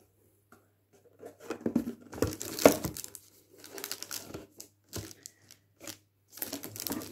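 Clear plastic wrapping crinkling and rustling in irregular bursts as cardboard jewelry gift boxes are handled and lifted out of a shipping carton. It starts about a second in and is loudest near the middle, with a sharp click a little later.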